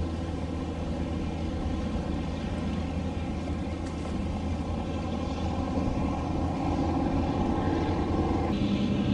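Engines running with a steady low drone. A hiss comes in near the end.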